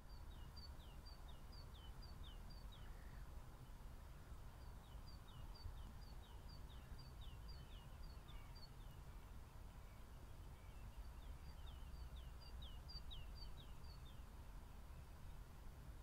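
A small bird singing faintly, repeating a two-note phrase: a short high note and a lower falling note, in runs of several seconds with short pauses. Under it is a steady low rumble.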